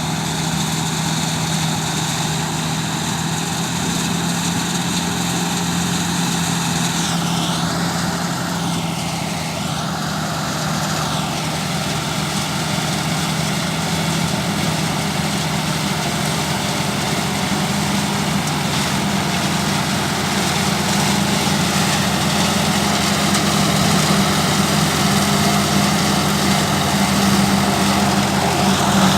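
A heavy engine running steadily, growing slightly louder over the second half.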